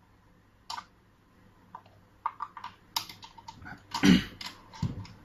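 Irregular clicks and knocks of a mechanical push-button door lock's parts being handled and fitted into a door, with a louder knock about four seconds in.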